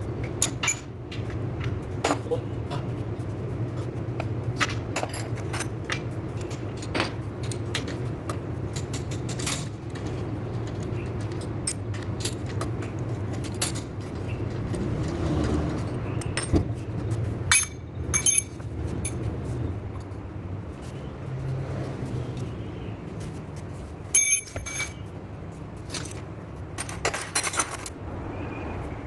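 Metal hand tools and brake parts clinking, tapping and knocking at irregular intervals during a brake pad replacement. A few strikes ring out metallically, twice clearly, over a steady low background hum.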